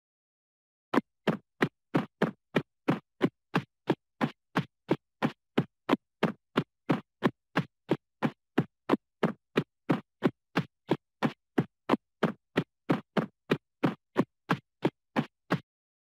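A cartoon sound effect: a rapid, even series of short, sharp scratchy hits, about three a second. It starts about a second in and stops just before the end.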